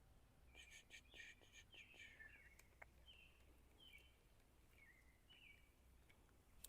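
Near silence with faint bird chirps: a series of short whistled notes, some dropping in pitch, over the first five seconds or so.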